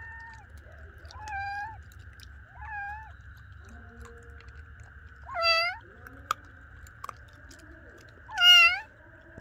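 Young kittens mewing: four high, rising-and-falling cries, two soft ones in the first three seconds and two loud ones about five and a half and eight and a half seconds in. A steady high drone runs underneath, with a single sharp click between the loud cries.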